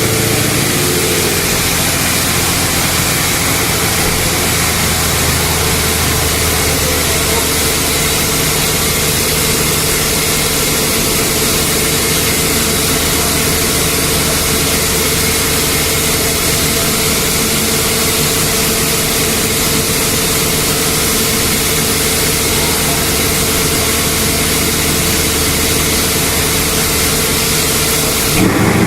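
2010 Camaro with aftermarket headers, intake and exhaust idling steadily through its loud exhaust.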